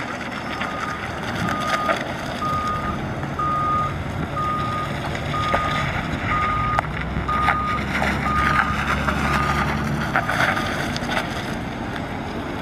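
Chevrolet Silverado pickup's engine running as the truck drives slowly and turns. A reversing alarm beeps steadily about once a second and stops about ten seconds in.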